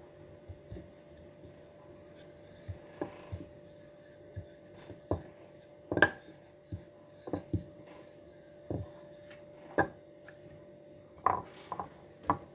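Irregular knocks and clinks of kitchen utensils and dishes being handled and set down, about a dozen spread unevenly, the loudest about six seconds in, over a faint steady hum.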